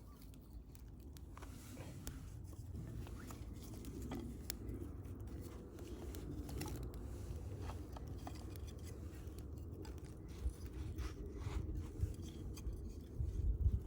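Wood campfire crackling: scattered sharp crackles and pops over a low steady rumble, with a few louder knocks near the end.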